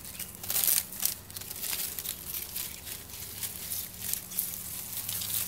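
Dry palm fronds crackling and rustling as a hand handles them: a run of quick, irregular crackles, loudest about half a second in.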